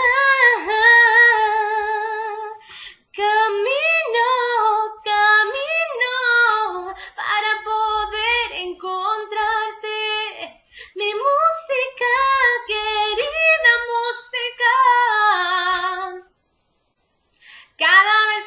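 A woman singing a cappella, unaccompanied, in long sustained phrases with vibrato. She breaks off briefly near the end, then starts singing again.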